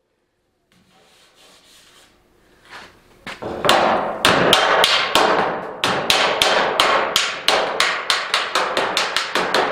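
Hammer blows on the edge of a sheet-metal roof panel. Sharp, ringing metal strikes start about three seconds in and settle into a steady run of about four a second.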